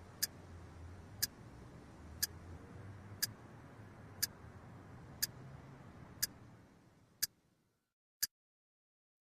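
Clock ticking, one sharp tick a second; the faint background hiss fades out near the end while the ticking continues.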